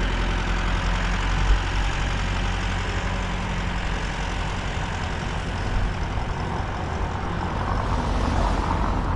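Street traffic: a vehicle engine running steadily with a low hum under a wash of road noise, and a brief low thump about a second and a half in.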